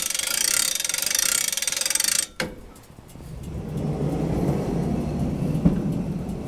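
Rapid, high-pitched mechanical ratcheting clicks that stop abruptly about two seconds in, then a low mechanical rumble that builds and holds.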